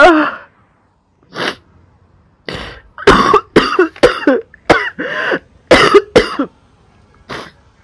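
A person's short, breathy vocal bursts, about ten of them in quick irregular succession. Most fall between about three and six and a half seconds in.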